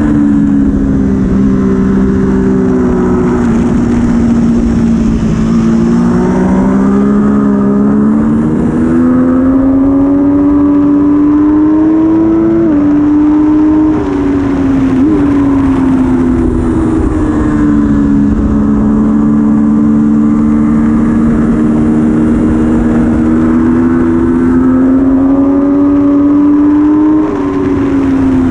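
Triumph Daytona 675R's inline three-cylinder engine running hard at track speed, with wind noise. The engine note climbs in pitch, drops sharply a little under halfway, holds fairly steady, then falls away near the end.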